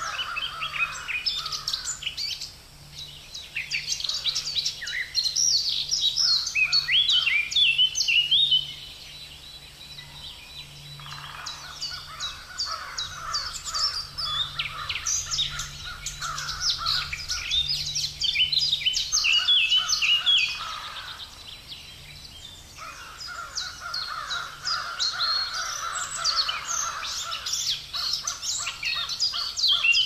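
Several songbirds singing together, rapid high chirps and trills coming in bursts of a few seconds with short lulls between.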